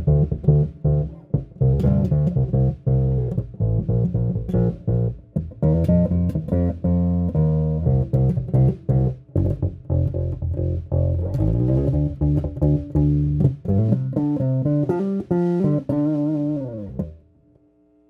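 Electric bass guitar played through a Carvin BX700 bass amp head with its drive turned about halfway up, a run of plucked single notes pushed into slight distortion with added presence. The playing stops about a second before the end.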